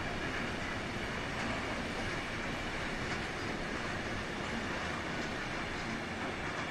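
Container freight train's wagons rolling past: a steady, continuous noise of wheels on rail with faint clicks mixed in.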